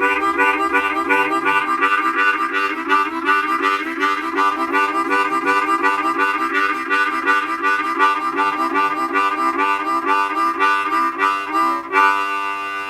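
Diatonic harmonica in C played in the beginner's train rhythm: fast, even alternating blow and draw chords that chug like a steam train. Near the end it changes to one long held chord.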